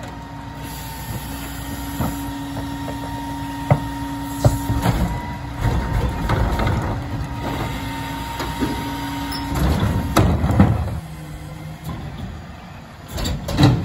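Rear-loader garbage truck's hydraulics running, a steady whine as the packer blade cycles, with clanks and thuds of carts being tipped and trash being compacted. The whine stops a little before ten seconds in, followed by a louder clatter.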